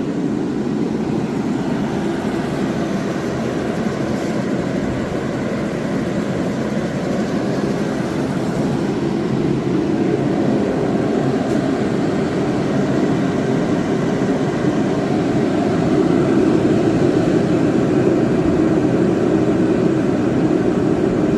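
Mr. Heater Contractor Series 30–60,000 BTU propane forced-air heater running: a steady fan-and-burner roar that gets slightly louder about three-quarters of the way through.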